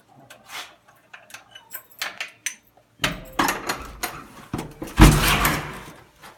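Metal clicking and rattling as a key is worked in a door lock, then the panelled door is pushed open, with a loud thump about five seconds in.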